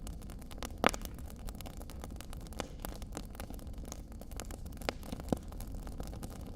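Wood fire crackling in a fireplace: scattered sharp pops over a steady low background. The loudest pop comes about a second in, and two more stand out near the end.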